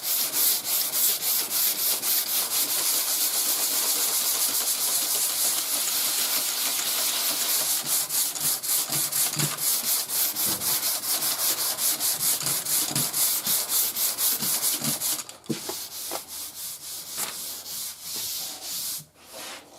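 Sandpaper on a hand sanding block rubbing back and forth over primer surfacer on a car body panel, in even strokes about three a second. The strokes turn fainter and sparser about three quarters of the way through and stop near the end.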